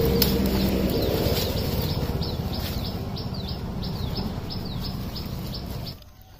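A bird calling in a fast series of short, falling chirps, about three a second, over a loud low rumble. Both cut off suddenly near the end.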